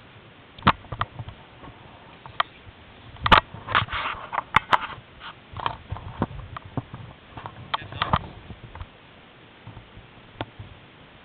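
Close-up handling noise: irregular rustles, scuffs and sharp clicks of paragliding gear being handled, bunched about three to five seconds in and again around eight seconds.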